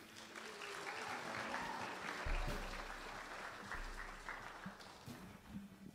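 Congregation applauding, swelling right after the start and dying away near the end.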